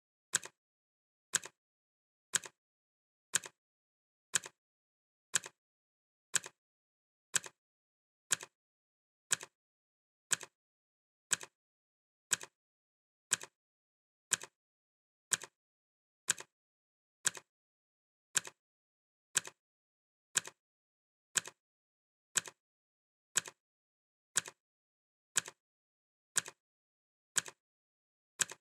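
Clock ticking steadily, one sharp tick each second, each tick a crisp click with a quieter after-click.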